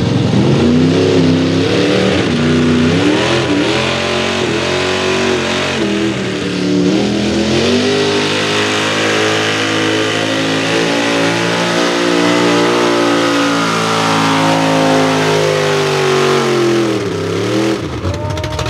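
Ford pickup mega truck's engine pulling a weight-transfer sled. It revs up and down a few times at the start, then holds high revs under load, the pitch climbing slowly through the pull, and falls away sharply about a second before the end.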